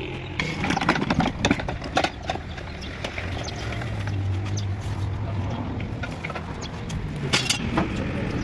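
Metal clanks and knocks from a heavy tractor hydraulic lift housing being handled and lifted into place: a quick run of knocks at first, then a single loud clank near the end.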